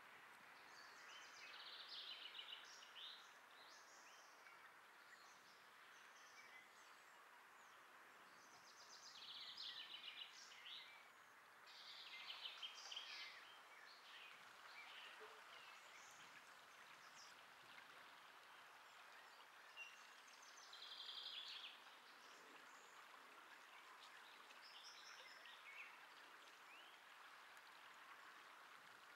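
Faint outdoor ambience: a steady low hiss with small birds singing, several bursts of high, quick twittering phrases.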